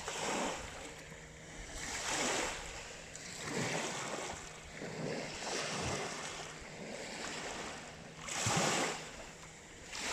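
Small lake waves washing in, in repeated swells about every one and a half to two seconds, the biggest one near the end.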